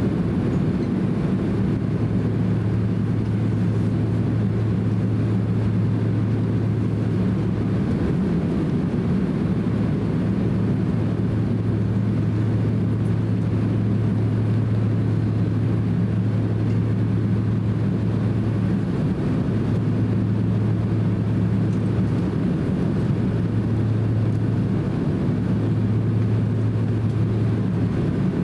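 Cabin noise inside a Boeing 767-300 airliner taxiing: a steady low engine hum, whose deepest drone dips briefly a few times in the second half.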